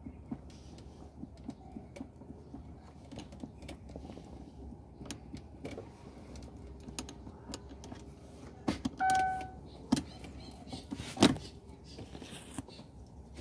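Metal tool prying and tapping inside a broken, jammed automatic gear shifter mechanism: a run of small irregular clicks and knocks of metal on plastic, with two louder sharp clicks near the end. An electronic beep sounds once, briefly, about nine seconds in.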